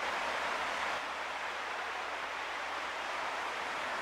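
Steady, even rushing noise with no engine note, voice or separate events in it: seashore ambience such as surf or wind.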